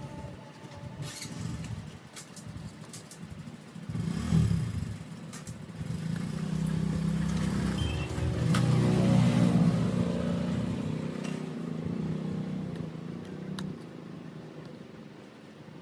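A motor or engine hums with a shifting pitch and grows louder for a few seconds in the middle, with a few faint light clicks over it.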